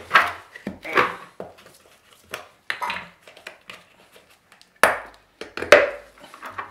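Small metal paint and hardener tins knocking and clinking as they are handled and set down on a tiled floor: a string of sharp clinks and knocks, the two loudest near the end.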